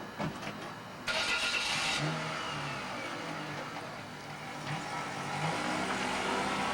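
A car engine starts about a second in and keeps running, revving up a couple of times near the end.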